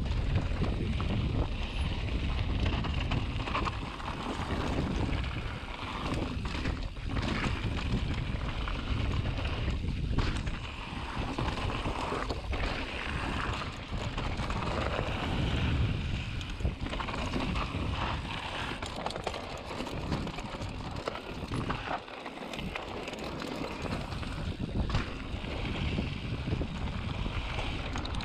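Mountain bike descending a dirt trail: the tyres roll and crunch over the ground and the bike rattles and knocks over bumps, under steady wind rush on the microphone.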